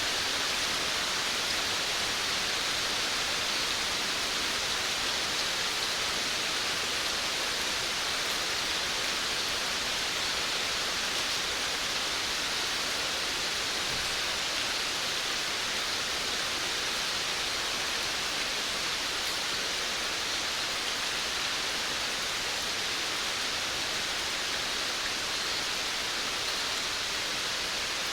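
Steady rain falling on a veranda, a dense even hiss with no distinct drops standing out.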